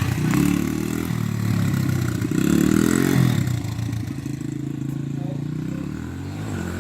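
A small vehicle's engine revving up and down through the gears as the rider pulls and holds a wheelie, its pitch climbing from about two seconds in and dropping back after about three seconds.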